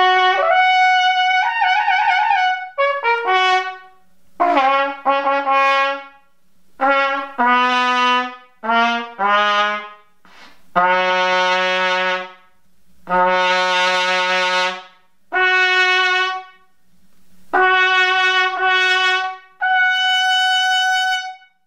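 Thrumpet, a brass instrument, played through a 3D-printed mouthpiece: a series of separate held notes and short phrases with brief pauses between them, moving between low and high notes, a few with a slight vibrato.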